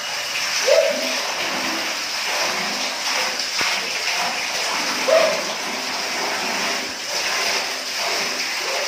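Water pouring steadily from a wall tap spout and splashing onto a stone bath floor and hands held in the stream. Two brief pitched sounds stand out over the water, about a second in and about five seconds in.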